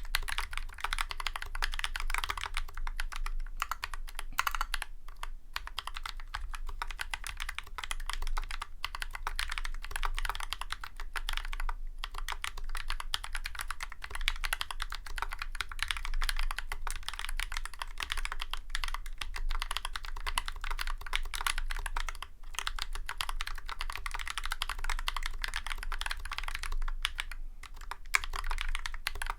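Continuous typing on a Drop CTRL High Profile mechanical keyboard with YOK Holy Panda tactile switches, lubed with Krytox 205g0 and Tribosys 3203, and GMK keycaps, its case damped with Sorbothane and foam. A dense run of key strokes, broken by a few brief pauses.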